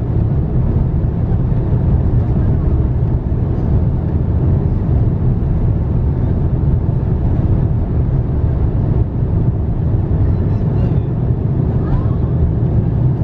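Airbus A350-900's Rolls-Royce Trent XWB engines at takeoff thrust, heard from inside the cabin during the takeoff roll: a loud, steady, deep rumble mixed with the rumble of the wheels on the runway.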